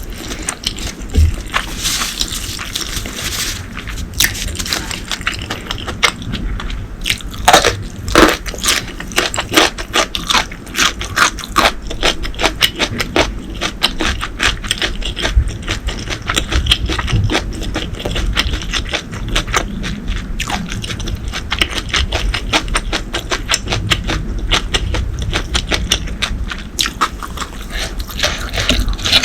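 Close-miked eating sounds: a person chewing food with a dense, irregular run of crisp crunchy clicks and crackles, without pause.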